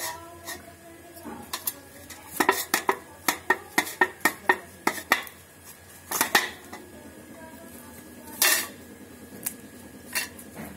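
Knife clinking and knocking against a stainless-steel plate as the leaves and stalk are cut off a head of cauliflower. A quick run of about a dozen sharp clinks in the middle, then a few scattered ones, one of them longer like a scrape.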